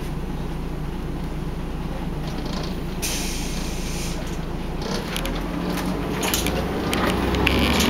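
Volvo Olympian double-decker bus's diesel engine idling, with a hiss of released air about three seconds in. Later the engine note deepens and grows louder, with a few knocks and rattles near the end.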